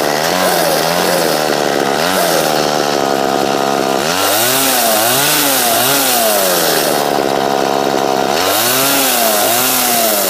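Two-stroke chainsaw, running on a newly fitted carburetor, idling and revved in short throttle blips: a few small ones at the start, a run of three or four quick revs about four seconds in, and another run near the end.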